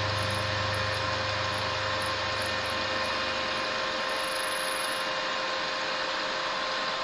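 Vertical milling machine running with its spindle turning: a steady mechanical whir with gear noise and a steady hum. A low drone underneath drops away about three and a half seconds in.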